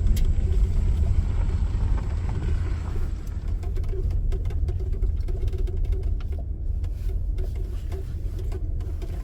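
Steady low rumble of a car on the move, with faint scattered clicks.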